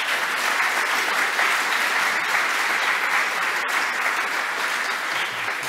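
Audience applauding, a dense, even clapping that eases slightly near the end.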